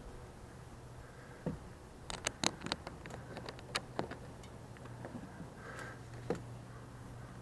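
A quick run of sharp clicks and light taps about two to four seconds in, with a couple more later, over a faint steady low hum.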